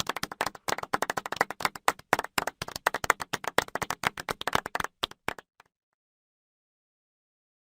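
Applause: a group of people clapping, a dense run of separate sharp claps that thins out and stops about five and a half seconds in.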